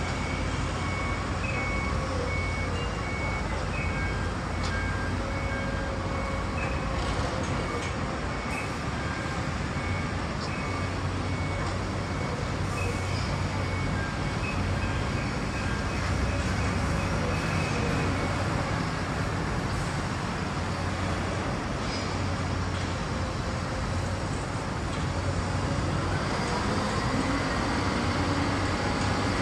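Steady city traffic noise around a construction site, with a run of short, evenly repeated electronic beeps during the first several seconds. A louder pitched sound builds near the end.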